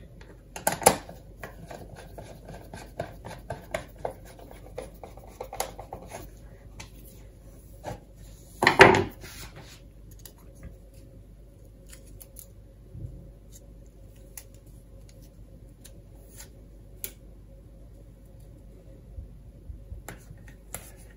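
Hands handling a plastic project box and a printed adhesive label: a run of small clicks and rustles, one louder noise of about half a second about nine seconds in, then mostly quiet with a few ticks, and more clicks near the end.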